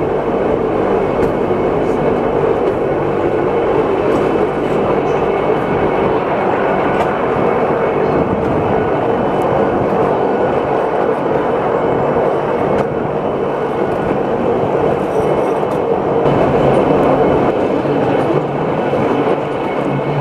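Electric rack railcar of the Pilatus Railway running on its cogwheel rack track: a steady drone with a constant hum, heard from inside the car with the window open.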